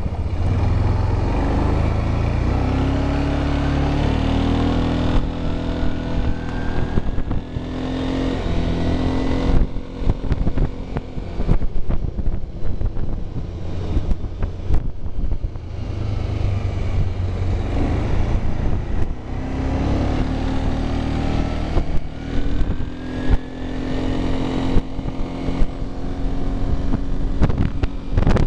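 Arctic Cat ATV engine running while riding on a gravel road, picking up speed twice with its pitch stepping up and a faint rising whine. In the quieter middle stretch there are scattered sharp clicks and knocks, with wind on the microphone.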